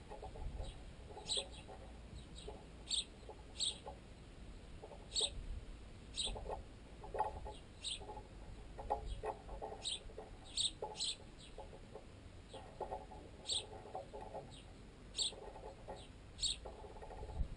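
Sparrows chirping, short high-pitched chirps at irregular intervals, over bursts of rapid pecking at bread held in a tent guy line. The pecking carries up the line into the tent pole and sounds unnaturally loud.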